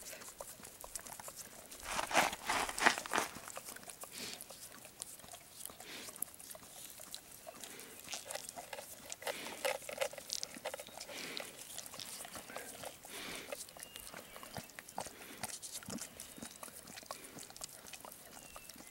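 Pit bull licking and slurping at a squeezed foil food pouch held to its mouth: a scatter of short clicky mouth sounds, with a louder stretch about two to three seconds in.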